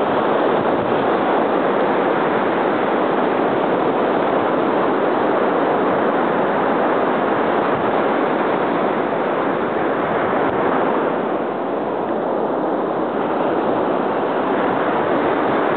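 Ocean surf washing onto the beach: a steady, loud rush of water that eases briefly about twelve seconds in.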